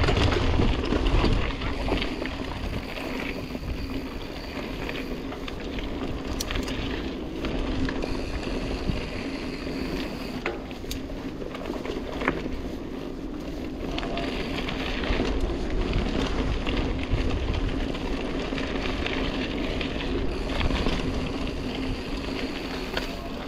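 Mountain bike riding a singletrack trail, heard from a camera on the bike or rider: steady wind rumble on the microphone and tyre noise, with scattered sharp clicks and rattles over the bumps.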